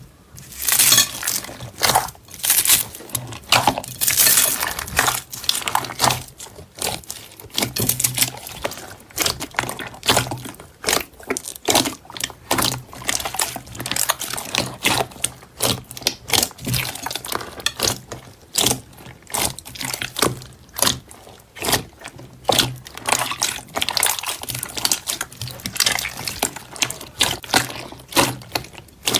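Slime being squished and pressed by hand: a fast, irregular run of wet clicks and pops.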